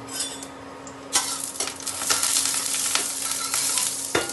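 Cumin seeds sizzling in hot oil in a pan as a tadka (tempering) begins, the sizzle starting about a second in. Two sharp knocks near the end.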